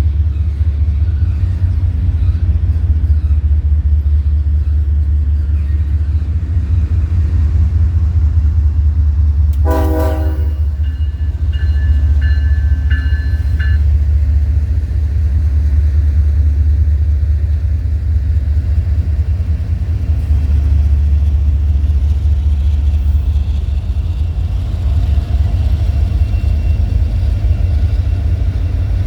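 A train running past with a heavy, steady low rumble. About ten seconds in there is a short horn toot, followed by about two seconds of high, steady ringing tones.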